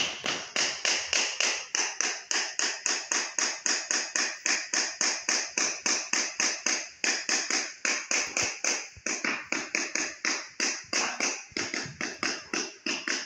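Rapid, regular tapping of a hard tool on ceramic floor tiles, about four sharp knocks a second with a few brief breaks.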